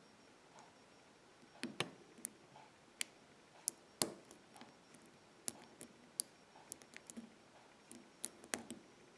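Irregular sharp clicks of a lock pick working the pin stack of a BEST 6-pin SFIC padlock core, the metal pick tapping the standard pins in the keyway under tension. There are about a dozen clicks at uneven intervals.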